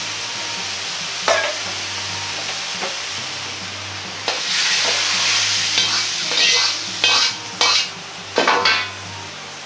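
Hot wok sizzling as stir-fried bok choy and its juices are tipped out and pushed into a colander to drain, over a steady low hum. From about four seconds in the hiss grows louder, and several sharp bursts of sizzling and steam follow as the liquid meets the hot metal.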